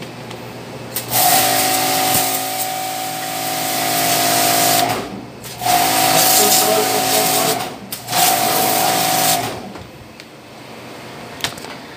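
Powered fogging sprayer blowing mist in three bursts, a loud hissing rush over a steady mechanical hum, each cutting in and out abruptly; the first lasts about four seconds, the next two about two seconds and one and a half seconds.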